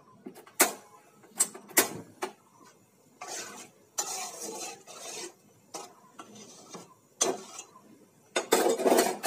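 Metal spatula knocking and scraping against the inside of a metal cooking pot while stirring a thick lentil-and-vegetable curry: a few sharp clinks in the first couple of seconds, then several short scrapes, the longest and loudest near the end.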